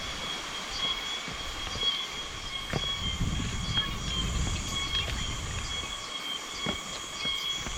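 Steady, high-pitched drone of insects in the forest, several thin tones held without a break, with a few faint knocks and a brief low rumble a few seconds in.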